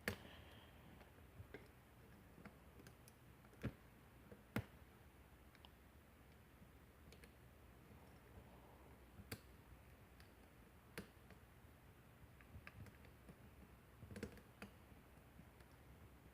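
Faint, sparse clicks from a lock pick and tension wrench working the pin tumblers of a Kwikset-keyway lock cylinder, irregular and a second or more apart, with two sharper clicks about four seconds in.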